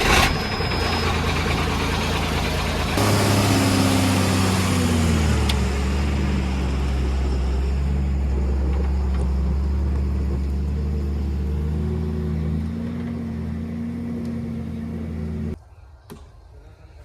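Heavy diesel vehicle engine running just after starting: it speeds up about three seconds in, settles to a lower steady speed, shifts pitch again near the end, then cuts off suddenly.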